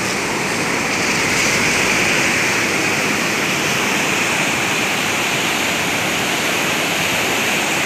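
Swift floodwater from a breached river embankment, rushing and churning in a steady, unbroken rush.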